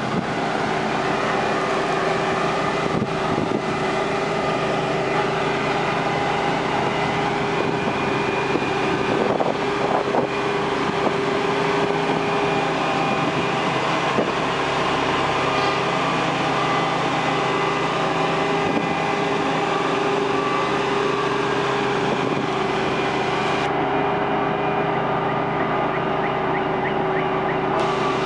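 Engine of gravel compaction equipment running steadily at a constant pitch, with a few knocks in the first half.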